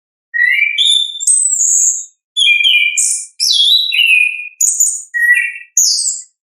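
Chestnut-capped thrush (anis kembang) singing a loud, varied song in its full 'ngeplong' style: a string of rich whistled phrases with sliding notes, broken by short pauses, ending with a sharp high note.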